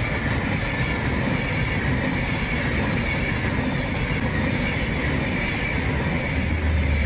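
Egyptian National Railways passenger coaches rolling past, a steady loud rumble and rattle of steel wheels on the rails with faint high wheel squeal. A deeper rumble grows near the end.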